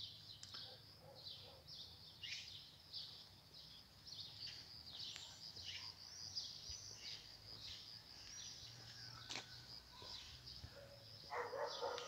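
Small birds chirping and twittering continuously, with a faint low steady hum underneath. About eleven seconds in, a louder, lower-pitched sound joins in.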